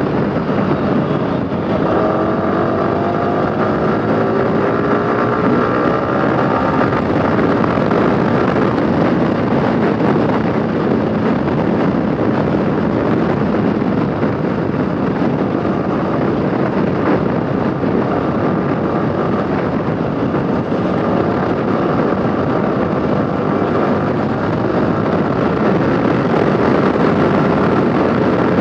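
Yamaha R15 V4's 155 cc single-cylinder engine running at speed under heavy wind rush on the microphone, its pitch rising as it accelerates from about two seconds in and again near the end.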